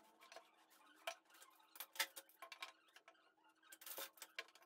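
Scattered light clicks and knocks of pine boards and metal bar clamps being handled on a workbench, irregular, with louder knocks about two seconds in and near the end, over a faint steady hum.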